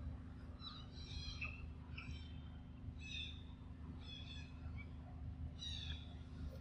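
High chirping calls, a short phrase about once a second, over a low steady rumble.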